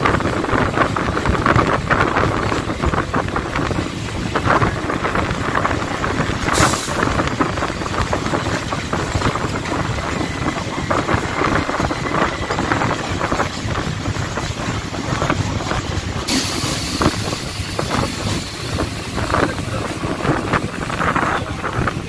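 Passenger train coaches running past at speed close by: a steady rumble of wheels on rail with a rapid, irregular clatter over rail joints, and a rush of air. A sharper hiss comes in about two-thirds of the way through.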